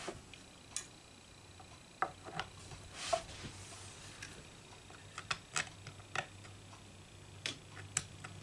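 Scattered small clicks and taps, with a brief scrape about three seconds in, as a bass guitar's metal dome control knob is handled and pried off its shaft on the pickguard.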